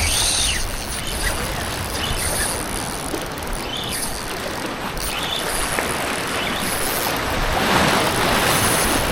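Outdoor water and wind noise: steady wash of moving water with wind on the microphone, swelling louder for about a second around eight seconds in.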